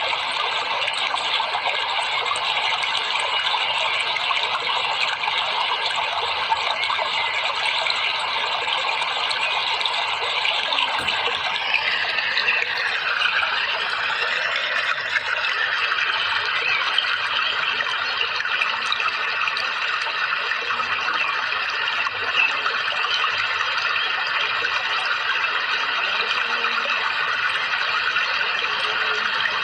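A steady rush of flowing water, with its tone shifting a little about twelve seconds in.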